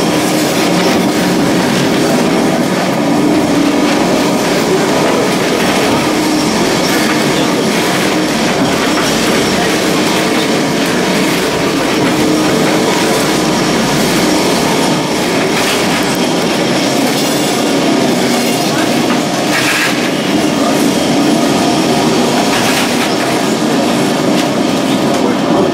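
Old Lisbon tram 28 car heard from inside the cabin as it runs along the rails: a steady loud rattle and clatter of the car and its wheels, with a few sharper clacks in the second half.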